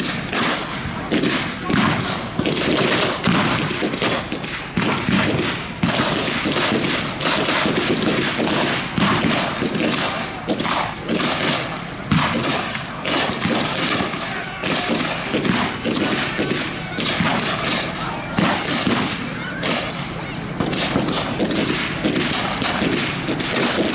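Sustained small-arms fire, with rifles shooting blanks in many sharp, overlapping shots, several a second and without a break.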